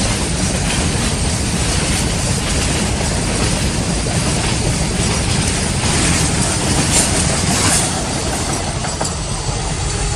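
A train's wagons rolling past close by: a steady rumble of wheels on the rails, with a couple of sharper clacks about seven seconds in.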